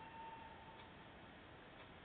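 Near silence with faint ticks about once a second and a faint steady tone that stops a little after the first second.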